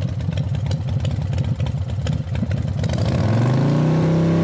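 Motorcycle engine idling with a fast, uneven beat, then revving up a little under three seconds in and holding steady at higher revs.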